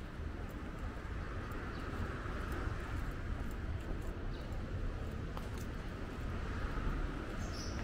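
Quiet outdoor street ambience: a steady low rumble with faint scattered clicks, and a short high bird chirp near the end.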